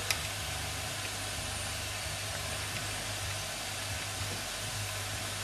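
Steady hiss from the lit boiler of a Märklin 16051 toy steam engine as it comes up to the boil, with one sharp metallic click just after the start as a cap is fitted on the cylinder block.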